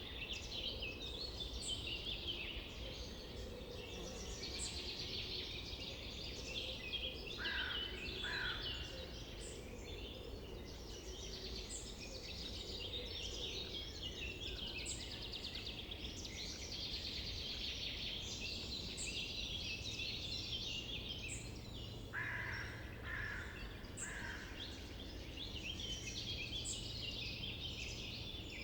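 Summer forest birdsong: several songbirds singing at once, with a high thin note repeating every second or two and a lower call breaking in twice.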